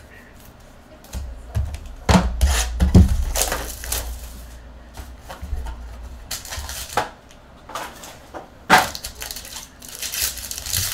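Hands unboxing trading cards: a cardboard card box handled and knocked, with a cluster of thuds about two seconds in, then a plastic-wrapped card pack and sleeved cards crinkling in short bursts.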